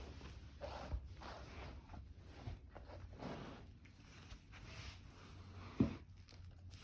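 A kitten playing, with light rustling and scuffling and a few soft knocks, the loudest a short thump about six seconds in.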